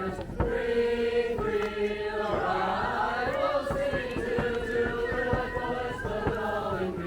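A group of voices chanting a hymn in unison, with long held notes that move slowly in pitch.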